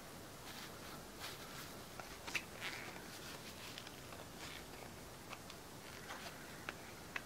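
Faint scattered small clicks and brief light scrapes of a wooden stick scraping thick, viscous epoxy resin out of a small plastic measuring cup. The sharpest click comes about two and a half seconds in.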